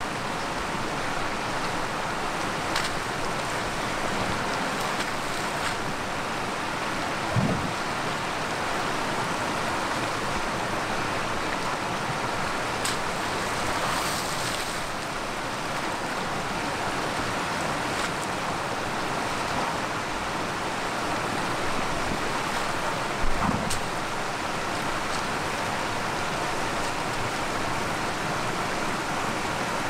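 Steady rushing of river water flowing over rocks in the shallows. Two brief low thumps come at about seven seconds and again near twenty-three seconds.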